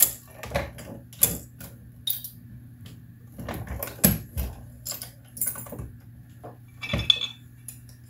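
Dillon 550C progressive reloading press being worked to seat a bullet in a 9mm case: irregular metallic clicks and clanks from the press and its handle, mixed with copper-jacketed bullets clinking in a plastic bin. The few loudest clanks come about a second in, near the middle and near the end.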